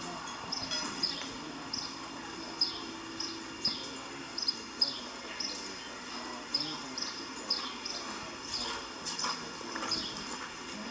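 A bird chirping over and over: short, high chirps that drop in pitch, about two a second.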